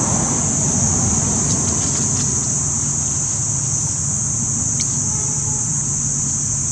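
Steady outdoor ambience: a continuous high-pitched insect chorus over a steady low rumble, with a couple of faint ticks near the end.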